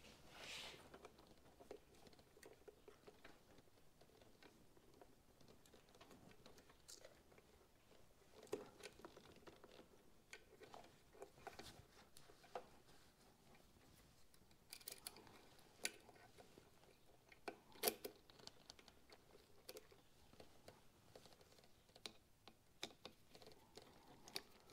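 Near silence with scattered faint clicks and taps, a few sharper, of small metal parts being handled: the carburetor's hose clamp being turned round and refitted, with a small screwdriver.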